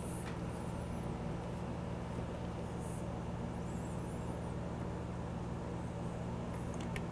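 A steady low hum with a few faint high chirps, and a light click or two near the end.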